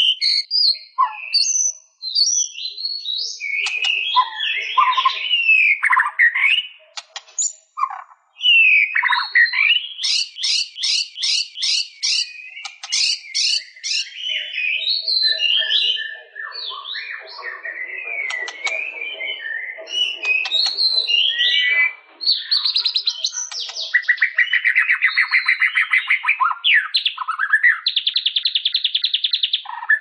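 White-rumped shama (murai batu) singing a long, varied song of whistled phrases, fast runs of repeated notes and, near the end, long rapid trills.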